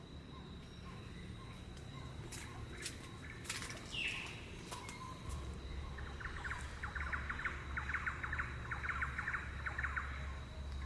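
Rainforest ambience: birds calling over a steady high insect whine. A fast, rattling trill of rapid pulses runs through the second half over a low rumble.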